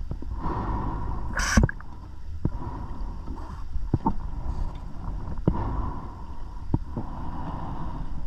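Underwater sound of a scuba diver breathing through the regulator, with a loud rush of exhaled bubbles about a second and a half in, over a steady low rumble. Several sharp clicks come at intervals.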